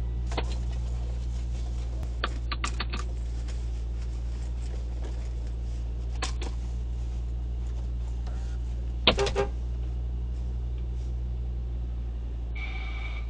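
Car engine idling steadily, heard from inside the cabin as a low hum. A few sharp clicks come over it, a cluster of them about two to three seconds in and a louder group about nine seconds in, and a short buzzing tone sounds near the end.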